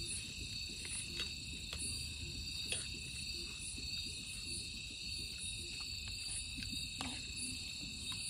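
Night insects chirping in a steady chorus at several high pitches, with a fainter high chirp pulsing about every half second to a second. A few faint clicks of a spoon on a plate come through.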